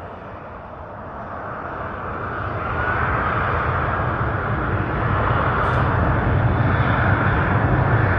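Boeing 747-8's four GEnx turbofan engines on final approach: a steady jet rumble and whine, growing louder as the airliner comes nearer, with a short rising whine about two and a half seconds in.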